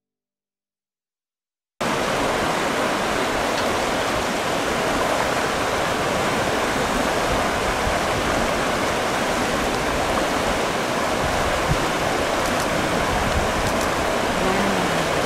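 Silence for about two seconds, then a steady rush of fast-flowing river water.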